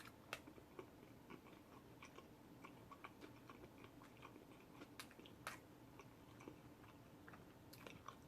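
A person chewing a rotisserie chicken sub sandwich close to the microphone, making faint, irregular wet mouth clicks, with a couple of slightly louder ones about five seconds in.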